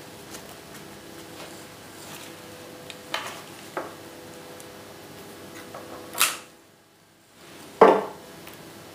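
Florist's snips cutting flower stems: sharp clicks about three seconds in and a louder snip about six seconds in, then a knock near the end, over a faint steady hum.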